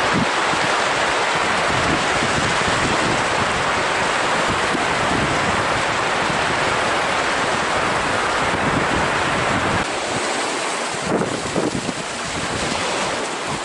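Surf breaking steadily on a sandy beach, mixed with wind rushing over the microphone. About ten seconds in the sound changes, and gusts of wind buffeting the microphone stand out over the waves.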